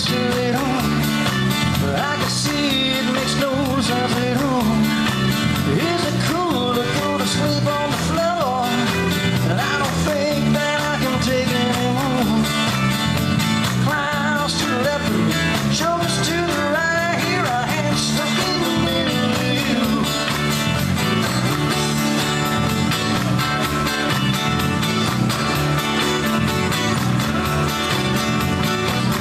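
Male singer performing a classic rock song live with guitar over a pre-recorded backing track with harmony vocals. The lead vocal drops out about two-thirds of the way through, leaving the instrumental backing.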